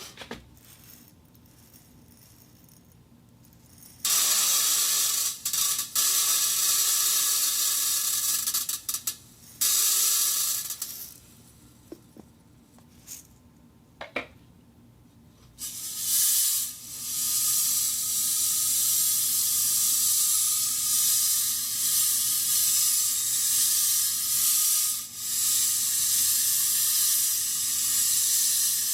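Wire netting rubbed and scraped against an iron plate, making long harsh, hissing scrapes. The scraping starts about four seconds in, breaks off twice with a few light clicks in between, then runs steadily from about halfway on.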